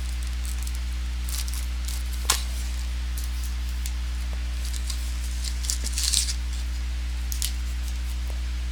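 Trading cards and their packaging being handled: a few light clicks and rustles, a sharp click about two seconds in and a little cluster around six seconds, over a steady low electrical hum.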